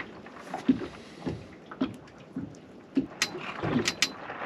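A series of light knocks and taps, irregular and about one every half second, over a faint steady background.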